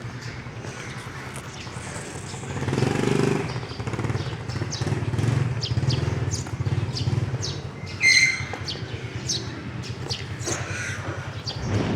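Small birds chirping over and over, with a motor vehicle's engine passing and fading through the middle. A short, loud, high call stands out about eight seconds in.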